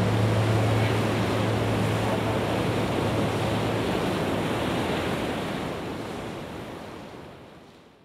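Ocean surf breaking on a beach, a steady rushing wash of waves, with a low steady hum underneath for the first half. The surf fades out over the last three seconds.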